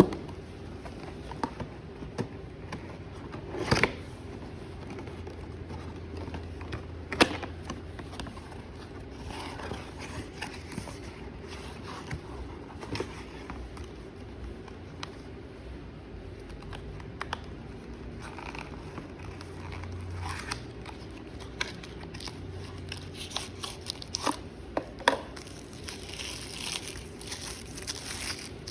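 Cosmetic packaging crinkling and rustling as it is handled and opened, broken by scattered clicks and a couple of sharper knocks. The crinkling grows busier near the end.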